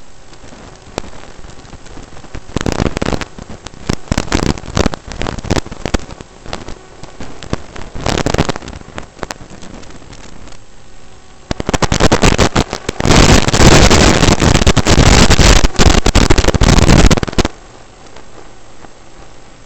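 Crackling, distorted rush of noise on the FPV quadcopter's onboard audio in flight. It comes in surges and is loudest, near clipping, for about six seconds in the second half.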